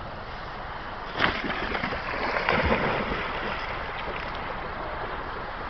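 A Weimaraner splashing in water: a sudden splash about a second in, then a couple of seconds of sloshing and splashing that fades, over a steady hiss.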